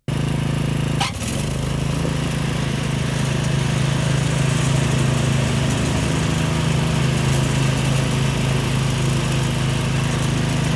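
Troy-Bilt TB30 rear-engine riding mower's engine running steadily as the mower is driven across grass, with one short click about a second in.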